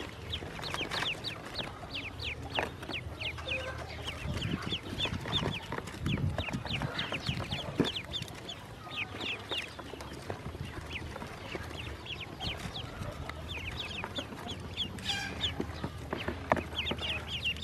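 Newly hatched yellow ducklings peeping: many short, high-pitched peeps overlapping in a continuous chatter.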